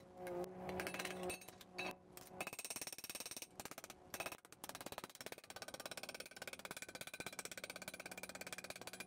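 Small hammer tapping sheet steel over an anvil stake, bending its edge over into a flange: a few separate blows at first, then from about two and a half seconds a fast, steady run of light taps.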